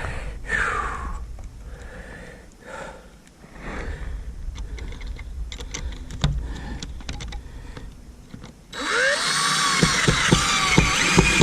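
Light handling clicks, then about nine seconds in a power drill starts up and runs for about three seconds, its motor whine rising and falling as it drives a screw into the coop door.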